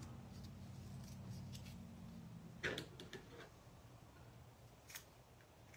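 Faint handling sounds of paper craft pieces and a small craft tool on a tabletop: a few light taps and clicks, the loudest about two and a half seconds in, over a low hum that fades early on.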